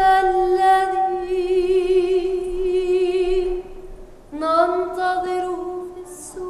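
A woman's solo voice singing unaccompanied: one long held note with vibrato, then after a short breath a second held note that scoops up into its pitch.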